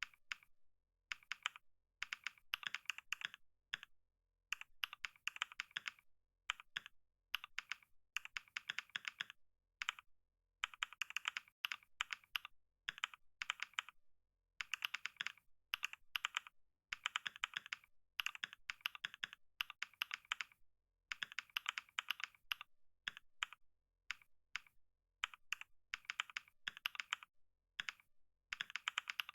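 Computer keyboard being typed on fast: bursts of rapid key clicks, word by word, with brief pauses between runs, as in a typing speed test.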